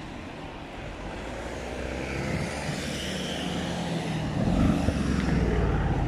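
A motor vehicle approaching and passing on the street: engine hum and tyre noise grow louder, loudest about four and a half seconds in.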